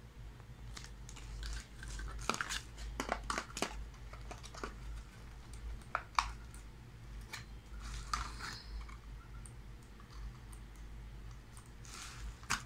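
Plastic packaging and bubble wrap crinkling and crackling in irregular bursts as they are handled, with a few sharp clicks and taps, over a low steady hum.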